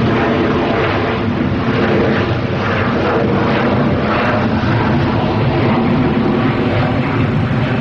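Boeing 747-8F freighter taxiing and turning onto the runway, its four GEnx jet engines running with a steady, loud rumble and whine.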